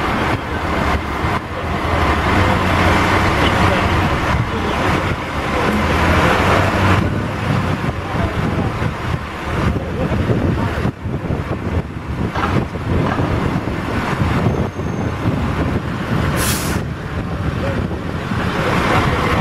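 Diesel engine of a truck-mounted boom crane running steadily during a lift, with one short sharp hiss of air near the end.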